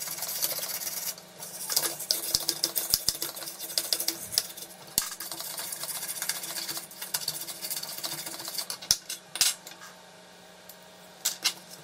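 Toothbrush bristles scrubbing the copper tracks of a Fiat 128 instrument-panel flexible circuit board in quick back-and-forth strokes, cleaning oxide off the contacts. The scrubbing stops about nine and a half seconds in, and a few light clicks follow near the end.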